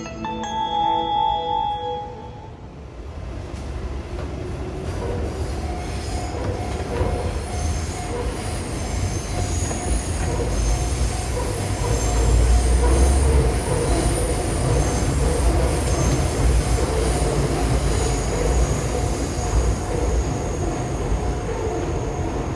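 A short burst of intro music, then a JR East electric train passing close by. Its wheels rumble steadily on the rails, growing louder to a peak about halfway through, with high-pitched wheel squeal over the top.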